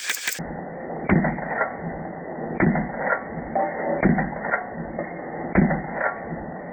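Muffled mechanical clanks and creaks, with sharper knocks about every second or two. The sound is dull, with no treble.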